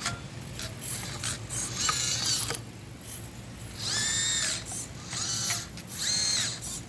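Tiny brushless motor and gear drive of an Axial SCX24 1/24-scale crawler whining in about four short throttle bursts, each rising in pitch and falling again, with ratcheting gear noise and scattered clicks between them.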